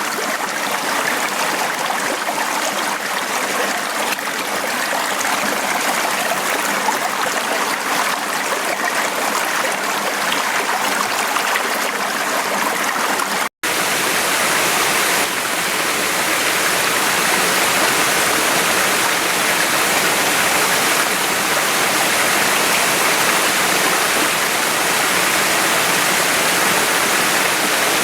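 Small mountain stream running over rocks: a steady rush and gurgle of water. It cuts out for an instant about halfway through, then comes back a little louder.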